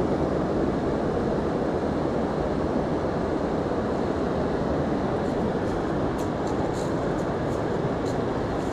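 Steady low rushing noise of a fast-flowing river current over rocks, with a few faint ticks in the second half.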